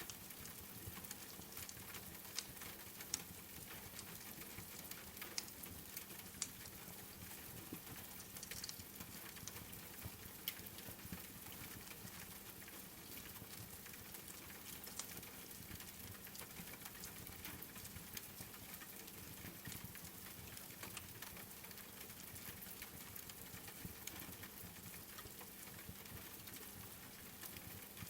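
Rain and a wood fire crackling in a fireplace: a steady, even hiss of rain with scattered sharp pops and clicks, a few louder ones in the first several seconds.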